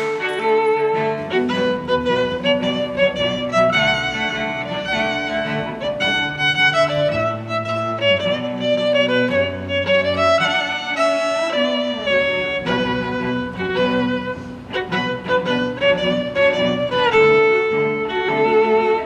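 Background music: a violin melody over bowed strings, in held notes that change about once a second.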